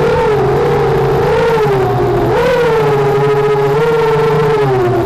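FPV racing quadcopter's electric motors and propellers whining, heard from its own onboard camera, the pitch rising and falling with the throttle.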